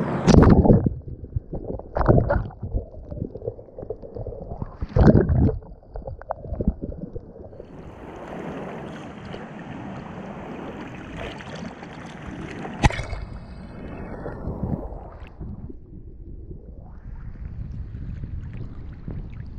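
Rough sea water splashing and sloshing over a waterproof GoPro at the surface: heavy splashes of waves washing over it in the first five seconds or so, then a steady churning wash of water and wind, with one sharp knock about thirteen seconds in.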